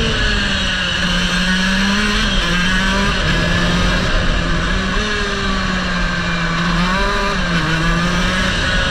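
Racing kart engine running hard at speed, heard on board, its note dipping briefly twice as the throttle eases for corners and picking up again. Steady wind rush on the microphone throughout.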